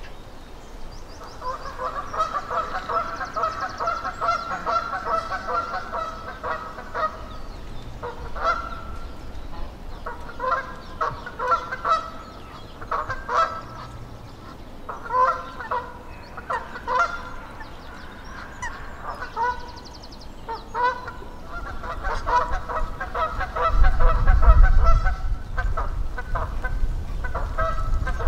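Geese honking: a long run of rapid, repeated honks, then single honks and short bursts, then another run of rapid honks near the end. A low rumble joins about three-quarters of the way through.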